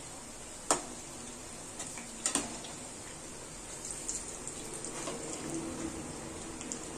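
Lauki koftas deep-frying in hot oil in a kadhai: a steady sizzle with fine crackles. A perforated steel slotted spoon knocks sharply against the pan twice, under a second in and again just over two seconds in.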